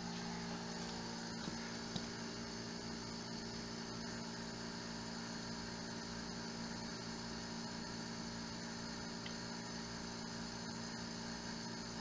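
Small electric vacuum pump running steadily, a constant low hum as it pulls a vacuum on sealed steel drums.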